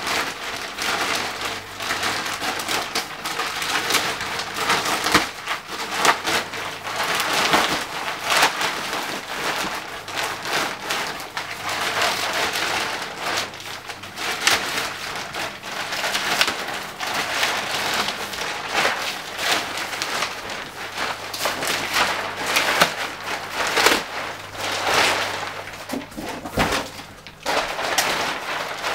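Thin plastic mattress wrapping crinkling and crackling continuously as it is pulled and pushed by hand.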